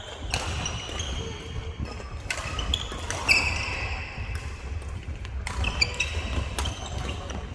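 Badminton rally: sharp racket strikes on the shuttlecock roughly once a second, with short squeaks of court shoes on the floor between them.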